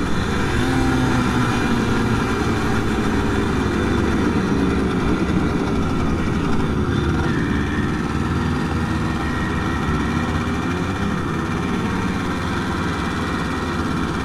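Simson 50 cc two-stroke moped engine running on the move, its note wavering gently up and down with the throttle.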